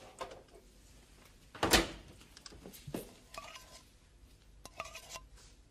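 Clicks and knocks of containers and dishes being handled, with one sharp knock about two seconds in and a couple of short squeaks later.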